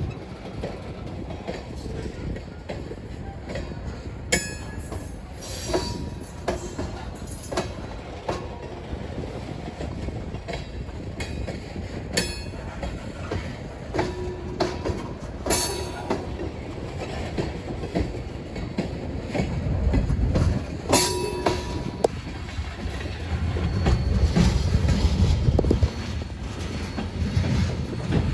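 Freight train of grain cars rolling past, a steady rumble of wheels on rail that grows louder in the last third. Now and then it gives a sharp metallic clank, several with a brief wheel squeal.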